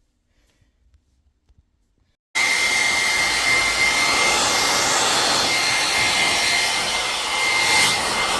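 An electric fan-driven grooming appliance switches on about two seconds in and runs loud and steady: an even rush of air with one high whine over it.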